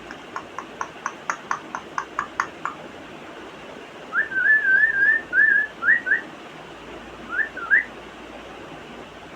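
African grey parrot making a quick run of about a dozen clicks, about four a second, that grow louder. It follows with a warbling whistle and then a few short rising whistles.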